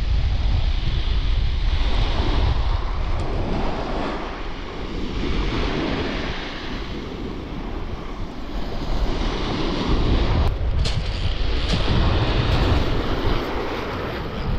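Strong wind buffeting the microphone over surf breaking on a shingle beach, the gusts swelling and easing. A few short clicks come about ten seconds in.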